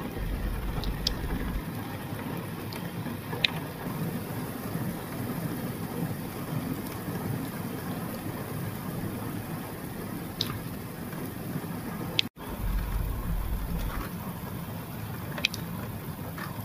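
Heavy rain pouring steadily over open scrubland. A low rumble sits under it for the first second or so and again just after a brief dropout about twelve seconds in.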